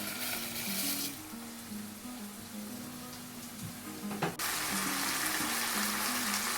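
Food frying and sizzling in a pan, with background music playing. About four seconds in there is a short click, and the sizzle suddenly gets louder.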